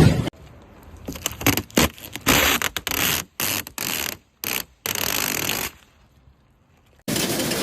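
Machine noise in short, irregular hissing and scraping bursts that start and stop abruptly. A quiet gap follows, then a different steady, loud noise cuts in near the end.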